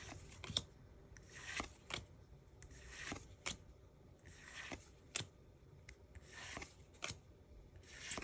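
Pokémon trading cards being slid one at a time off a pack's stack: faint soft swishes every second or so, with light clicks and taps of card edges between.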